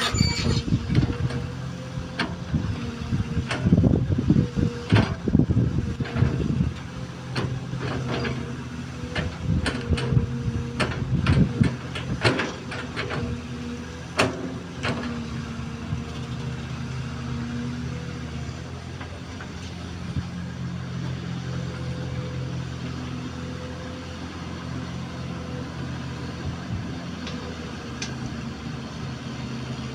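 XCMG XE215C hydraulic excavator's diesel engine running steadily, with frequent sharp knocks and clanks in the first half as the machine works the embankment. After about 15 seconds the knocks die away and only the steady engine hum remains.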